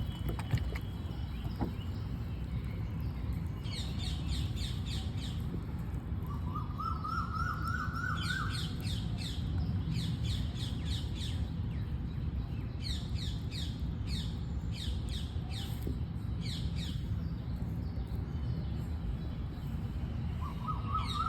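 Birds chirping: several clusters of quick, high, falling chirps, and twice a short run of lower repeated notes that rise in pitch, over a steady low rumble.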